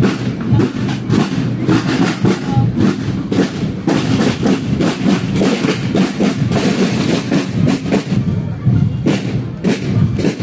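Marching-band drums beating a steady march rhythm, about two beats a second, with the brass silent.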